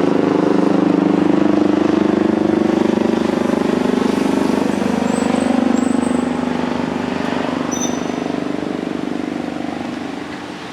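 Loud, steady engine drone with a fast throbbing pulse, fading after about six seconds.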